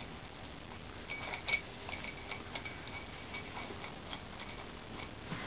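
Light, irregular clicks and small clinks, a few a second, from a dog nosing at and eating from a small cup of treats.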